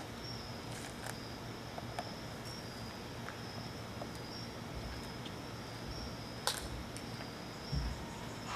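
A cricket chirping steadily in a high, regularly pulsing tone over a constant hiss, with a sharp click about six and a half seconds in and a few dull low thumps near the end.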